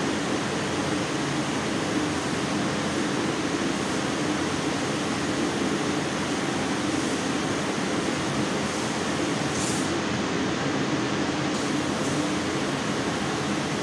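CNC laser cutting machine cutting a steel sheet, giving a steady hiss and hum, with a brief break in the high hiss about ten seconds in.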